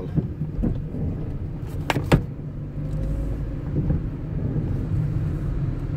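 Steady low engine and road rumble of a vehicle in motion, heard from inside the cab, with two sharp clicks close together about two seconds in.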